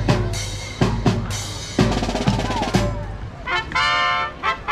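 Marching band playing live: snare and bass drums beat out a cadence with rolls, then the horns come in with long held notes near the end.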